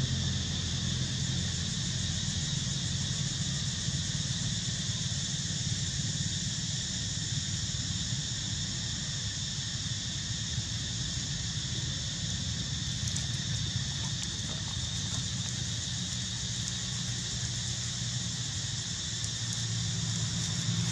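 Steady, unbroken high-pitched insect chorus over a low steady hum.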